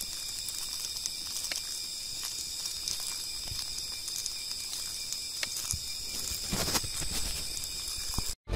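Night insect chorus: crickets shrilling steadily in several high pitches, with faint scattered clicks and rustles close by. It cuts off abruptly just before the end.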